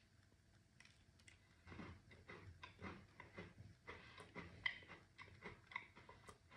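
Faint, irregular crunching of a person chewing a wholegrain shortbread biscuit with a cocoa-cream filling, starting a couple of seconds in.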